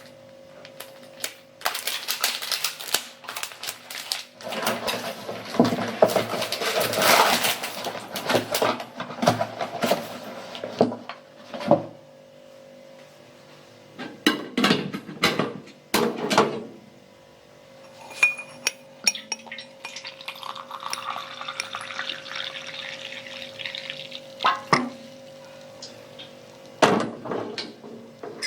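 Making a glass of milk: sharp clinks of a spoon against a glass, a long noisy stretch of pouring and stirring in the first third, and later a pour into the glass that rises in pitch as it fills.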